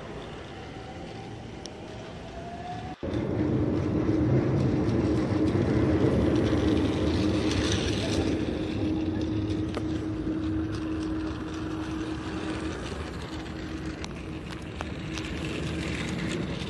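Small battery motor of a Daiso Petit Train toy train whirring as the train runs on plastic Plarail-type track, with light clicks from the wheels on the track. About three seconds in the sound breaks off sharply and comes back louder, now with a steady hum.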